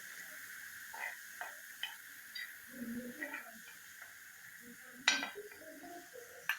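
Cooking utensil stirring and scraping in a pan of egg bhurji, with light clinks and a sharper metal knock about five seconds in, over a steady hiss.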